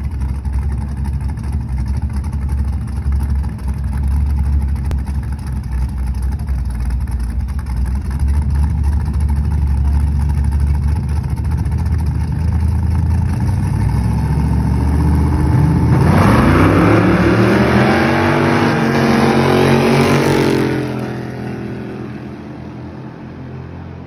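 Two drag-racing cars idling at the starting line, then launching about two-thirds of the way in: the engines rev hard, rising steeply in pitch for about five seconds, then drop off and fade away down the street.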